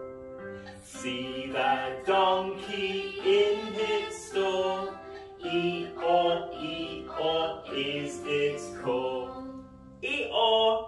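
Children's phonics song for the 'ee' and 'or' sounds: sung voices in short phrases over instrumental accompaniment.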